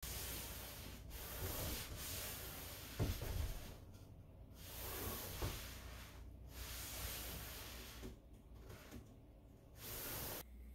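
Heavy breathing during pull-ups from the top of a door: long hissing breaths of a second or two each, with short pauses between them, and a couple of low thumps from the body or door.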